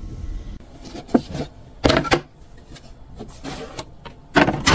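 A few hollow wooden knocks with some rubbing from the old pine cat tower being handled, the loudest knock near the end.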